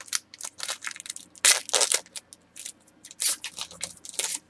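Trading-card pack wrapper crinkling and rustling as it is handled, in a string of short bursts, loudest about a second and a half in and again after three seconds.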